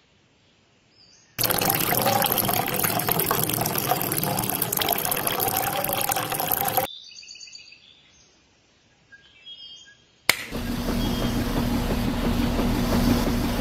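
Water poured from a metal cup into a tin can holding cement powder: a steady splashing pour lasting about five seconds. About ten seconds in, a click, and then the small battery-powered DC motor of a toy concrete mixer starts and runs steadily with a low hum.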